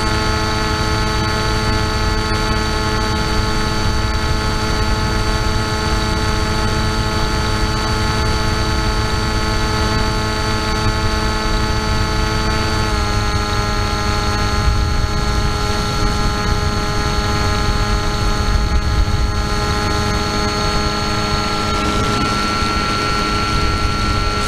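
Motor and propeller of an FPV model aircraft, recorded by its onboard camera: a steady whine of several even tones over rushing wind noise. The pitch drops slightly about halfway through.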